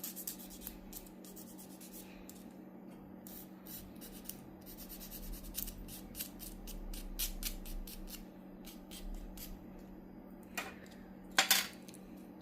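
Small snips, clicks and rubbing of a plastic fake nail tip being trimmed and shaped by hand, with a couple of sharper snaps near the end.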